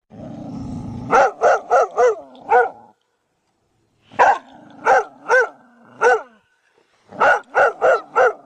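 A dog growls low for about a second, then barks in three quick bursts of four or five barks each, with short pauses between the bursts.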